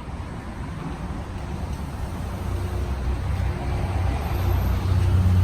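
TR-402 40-head ultrasonic humidifier running, its mist-blowing fans giving a steady low hum that grows gradually louder.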